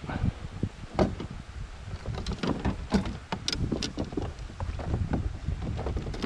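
Handling noise on a plastic sit-on-top kayak (Vibe Shearwater 125): irregular knocks and clunks as the landing net and gear are set down on the hull. Wind rumbles on the microphone underneath.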